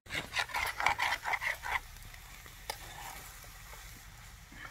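A spatula stirring and scraping quickly in a frying pan for nearly two seconds, then steady sizzling as scrambled eggs with bacon fry.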